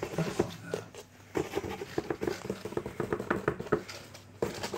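Light scratching and tapping on a cardboard shoebox, a quick flurry of small scrapes and taps that is busiest in the middle.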